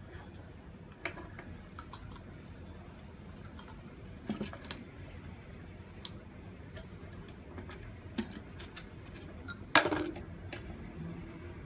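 Scattered small metallic clicks and clinks as cut cable pieces and hand tools are handled, with one louder clattering knock near the end.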